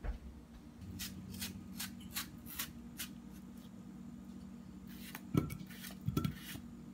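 Kitchen knife cutting ripe melon on a wooden cutting board: a run of short, faint scraping strokes, then two knocks near the end. A steady low hum runs underneath.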